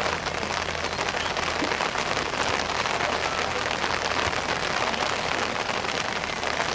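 Steady rain, a dense even hiss with fine patter.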